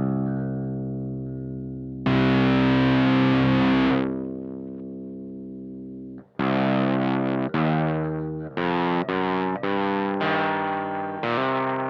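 Electric guitar played through a one-knob fuzz pedal into a Laney Supergroup valve amp, with thick distortion. A heavy chord rings out and fades, then a run of short, choppy chords forms a doom-metal riff.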